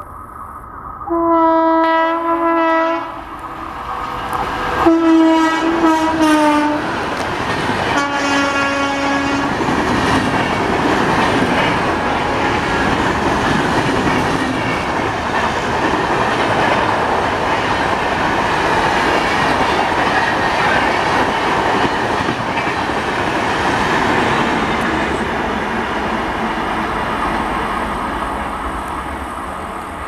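WAP4 electric locomotive sounding its horn three times, long blasts; the second slides down in pitch and the third is lower still as the locomotive passes. Then the express's passenger coaches run past for about twenty seconds, a loud steady rolling noise that fades near the end.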